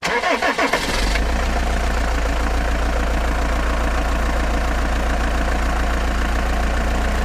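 Engine cranking and catching in the first second, then idling steadily.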